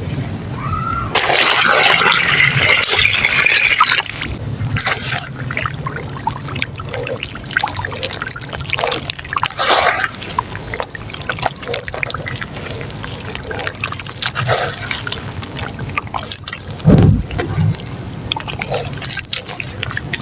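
Soft dirt chunks crumbling and squelching in water, with wet crackles and drips. A louder rush of water lasts about three seconds near the start, and there is a heavy thump near the end.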